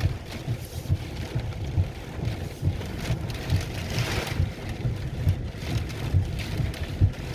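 Gusty straight-line derecho winds buffeting the microphone in irregular low rumbles, over a steady hiss of wind-driven rain that swells briefly about four seconds in.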